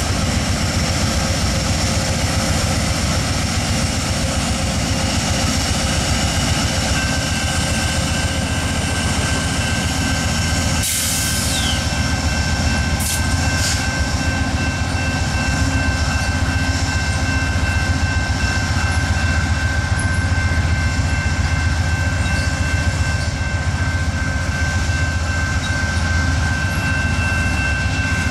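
Amtrak GE Genesis diesel locomotive and passenger train moving slowly on the track during a reverse move: a steady diesel rumble with a thin, constant high whine, and a short hiss about eleven seconds in.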